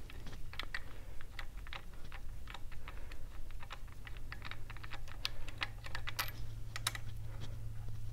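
Irregular light clicks and taps of hand tools working on an engine, several a second and unevenly spaced, over a steady low hum.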